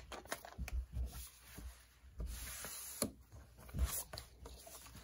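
Paper rustling and shuffling as printed manuals and instruction sheets are handled and leafed through, with a few dull knocks against the table.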